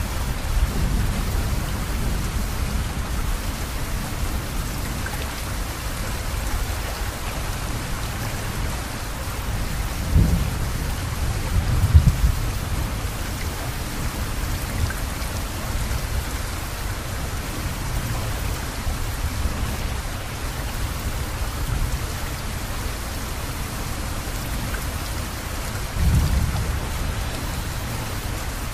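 Steady rain hissing, with low rumbles that swell about ten and twelve seconds in and again near the end.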